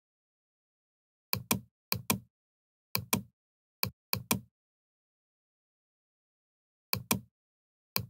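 Computer mouse button clicks, mostly in quick pairs like double-clicks, in two short spells with a pause of a couple of seconds between them.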